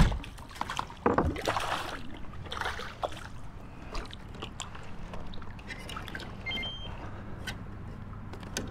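Water splashing and sloshing at the side of a kayak, strongest in the first three seconds, then scattered clicks and knocks on the hull and gear, as a hooked bass whose line has fouled in the trolling motor is worked to the boat.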